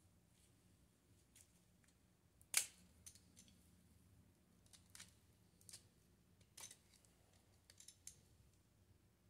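Faint handling noise of a compact digital camera being taken apart: scattered small clicks and taps of a screwdriver and metal parts of the lens module, one sharper click about two and a half seconds in.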